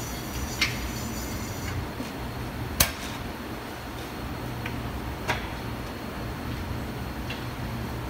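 A few short sharp clicks and knocks, four spread out with the second the loudest, over a steady low hum, as the 4L60 transmission is worked up into place under the truck.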